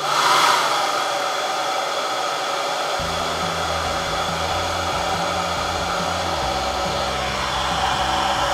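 Hair dryer switched on at the start and blowing steadily, used to evaporate the water from under a freshly laid wet decal. From about three seconds in, a low rumble joins the steady blowing.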